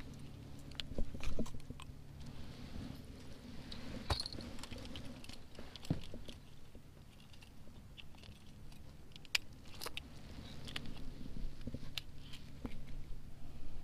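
Scattered light clicks and taps at irregular times over a faint steady low hum.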